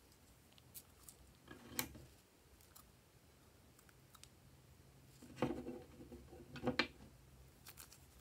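Metal scissors snipping the tip off a plastic piping bag full of slime: a few short, sharp snips and clicks, the loudest two about a second apart past the middle.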